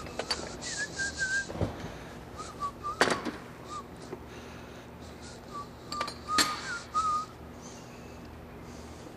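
A person whistling short, wavering notes in two brief phrases, one near the start and one about six seconds in. Scattered clicks and knocks come in between, two sharper ones about three and six seconds in.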